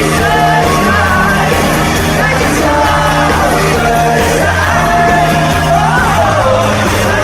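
Loud live pop concert: male voices singing a held, gliding melody over a band's steady bass, with the audience yelling and cheering over the music.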